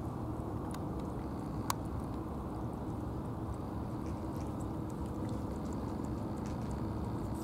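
Two cats eating wet food, with faint wet chewing and licking clicks and one sharper click about two seconds in, over a steady low rumbling background noise.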